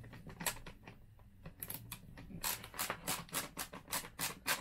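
Screwdriver driving a screw into a car instrument cluster's housing: a few scattered clicks, then a regular run of sharp clicks about four a second from about halfway in.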